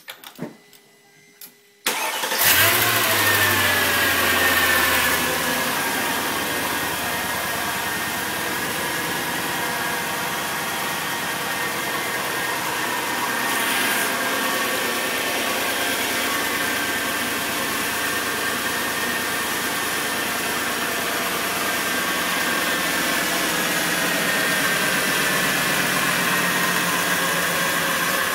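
Mercedes-AMG 5.4-litre "55" V8 started for the first time after an engine swap: it catches suddenly about two seconds in, runs at a fast idle for a few seconds, then settles into a steady idle.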